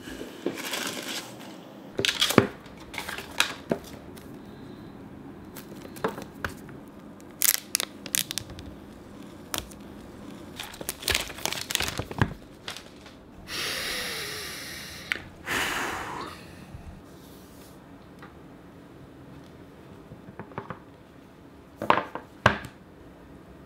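A cardboard iPhone 12 Pro Max box being handled and opened on a wooden desk: scattered taps, knocks and rustles. About halfway through come two stretches of paper tearing as the seal strips are pulled off, and a couple of sharp knocks near the end.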